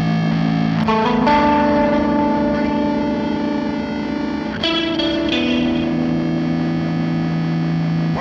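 Electric guitar chords played through a chain of effects pedals. The chords are held long and sustain, with a change of chord about a second in and another around four and a half seconds in.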